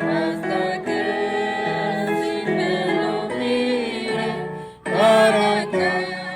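Several voices singing a hymn together over instrumental accompaniment; the singing breaks off briefly near the end, then comes back louder.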